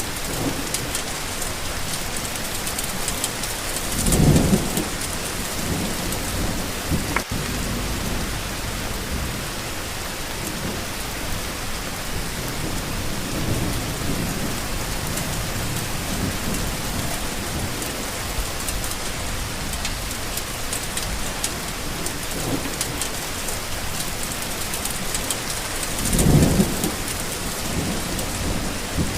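Steady rain falling, with low rumbles of thunder swelling up briefly twice, about four seconds in and again near the end.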